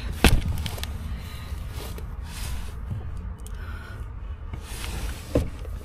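A cardboard-boxed power station being handled in a car's cargo area: a sharp knock about a quarter second in, then cardboard rubbing and scraping, and another knock near the end. A steady low rumble runs underneath.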